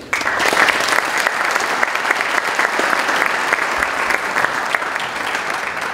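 Audience applauding: many hands clapping in a dense, steady clatter that breaks out suddenly.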